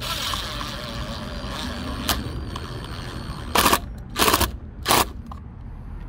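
Cordless drill/driver driving screws into a metal gate-latch cover on a wooden post. The motor whines steadily for about two seconds, a click follows, then three short loud bursts come about half a second apart as the screws are driven home.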